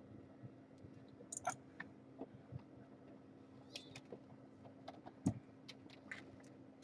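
A fleece towel being handled and pulled up in a kitten pen: scattered soft rustles and small clicks, with one sharper knock about five seconds in, over a steady low hum.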